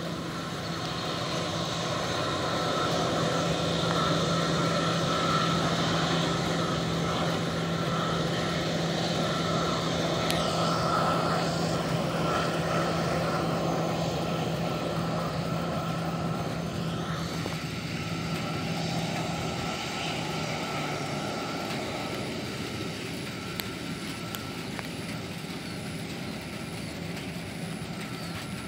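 TransNusa twin-engine jet airliner's engines running at low power while it taxis, a steady rushing hum with a low drone. The drone stops about twenty seconds in, and the sound eases off toward the end.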